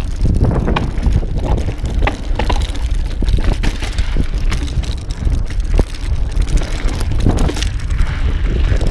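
Mountain bike riding over a rocky dirt trail: heavy wind rumble on the camera's microphone, with crunching tyres and frequent sharp clicks and rattles from the bike over rocks.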